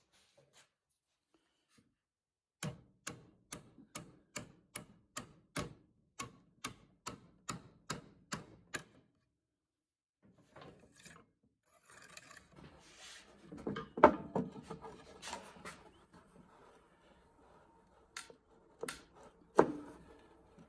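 Wooden tripod leg being taken apart by hand: a run of evenly spaced sharp taps, about three a second. After a pause comes irregular rubbing and scraping of wood with a few sharp knocks.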